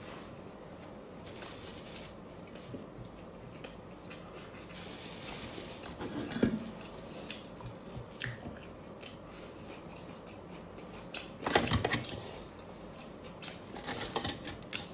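Eating sounds: roast duck being chewed and its meat pulled apart by hand, with scattered small clicks. There is a louder burst of handling noise about three-quarters through.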